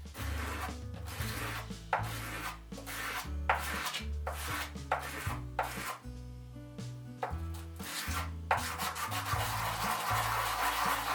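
Repeated rasping strokes of an abrasive on a wooden plane knob, which run together into a continuous rasp about eight seconds in, over background music with a stepping bass line.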